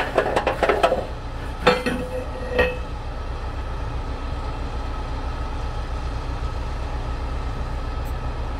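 A few sharp metallic clinks and knocks in the first three seconds, two of them ringing briefly, as a yellow cargo strap and its metal hardware are handled, over a steady low rumble.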